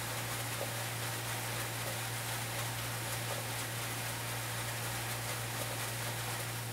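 Granular product pouring from an air cart's metering cartridge into a calibration bag while the meter roller turns, a steady rain-like hiss that fades near the end, over a steady low hum.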